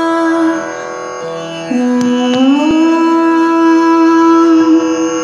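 Indian classical-style melodic music, long held notes with a slide: the line drops to a lower note about a second and a half in, then glides back up a second later and holds.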